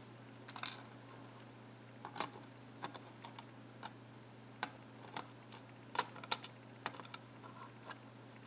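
Light, irregular clicks of small lock pins and springs being handled and set down one by one as they come out of a gutted five-pin lock, over a faint steady low hum.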